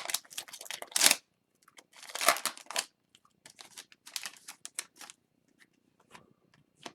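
An Upper Deck hockey card pack's wrapper being torn open and crinkled by hand, with the cards slid and flicked through. It comes in several short bursts of crackling that thin out to a few faint ticks after about five seconds.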